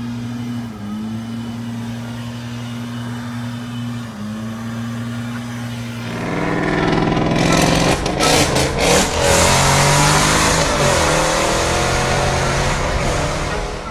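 A steady hum with two brief dips, then about six seconds in a car engine revving hard and accelerating, its pitch climbing in repeated rising sweeps.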